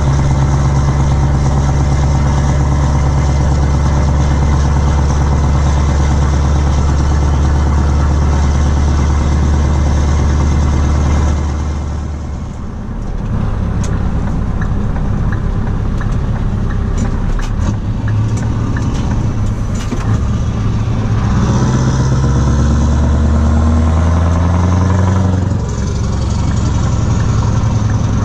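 Scania R500's V8 diesel running through open exhaust pipes, heard from inside the cab. It pulls at steady revs, eases off about twelve seconds in, and later climbs in pitch twice before the revs fall again near the end.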